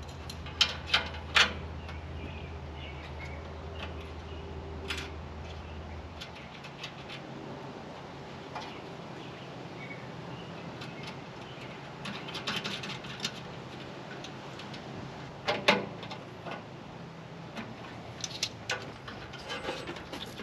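Hands handling wires and plastic wire loom: scattered sharp clicks and rattles, the loudest three in quick succession about a second in and one about two-thirds of the way through. A low steady hum underneath stops about six seconds in.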